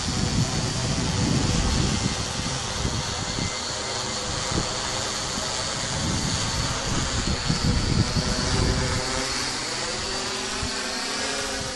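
ReadyEdi 650ST quadcopter's electric motors and propellers humming overhead as it descends to land: a steady, many-toned buzz whose pitch rises over the last few seconds. A gusty low rumble sits under it and dies away about nine seconds in.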